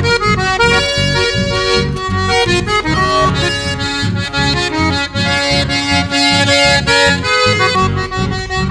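Chamamé played on accordion: a lively melody line over a steady, rhythmic low accompaniment.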